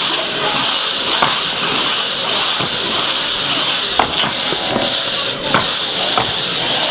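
Two-man hand saw pulled back and forth through a large wooden log, giving a steady, loud rasp, with a few sharp knocks along the way.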